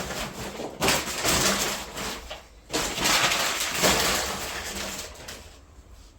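Plastic packaging crinkling and rustling as a filament spool is handled and unwrapped, in loud bursts starting about a second in, then fading near the end.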